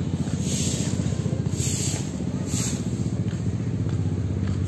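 A vehicle engine idling steadily close by, a low continuous rumble. A few short hissing scrapes come about a second apart.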